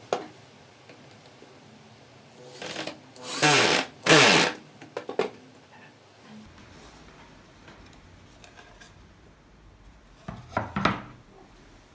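Wooden pieces scraping and sliding against an MDF board and a wooden workbench as a homemade saw jig is moved into place: two loud scrapes about three to four seconds in, a few light knocks, and another short scraping burst near the end.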